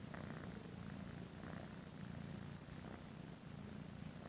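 A kitten purring steadily, a low rumble, as its chin is scratched.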